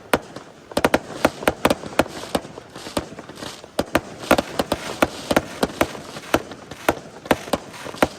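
Fireworks going off in rapid succession: an irregular string of sharp bangs and reports, several a second.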